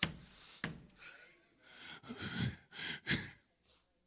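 A man breathing hard, a series of sharp gasps and heavy sighing breaths, the sharpest right at the start and about three seconds in.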